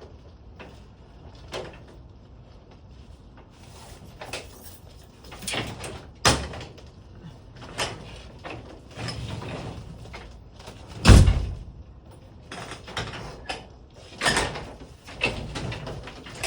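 Garage door and its hardware being worked: irregular knocks and clatters, with one heavy bang about eleven seconds in.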